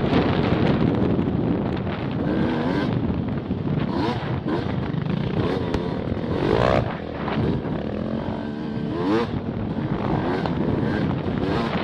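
Off-road motorcycle engine running hard on a sandy trail, its pitch rising and falling with the throttle and sweeping up sharply twice in the middle, with wind buffeting the microphone.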